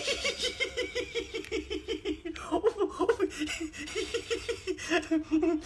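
A single voice laughing in a long run of quick 'ha-ha' pulses, about five a second, breaking briefly and carrying on about two and a half seconds in.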